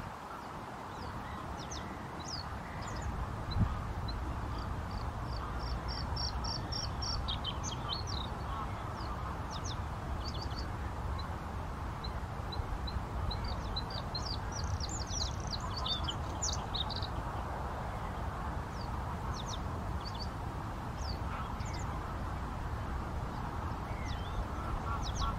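Male bluethroat singing in scattered phrases of short, high chirps and clicks, with a quick run of repeated notes about six seconds in and a busier phrase just past the middle. A steady low background rumble runs underneath.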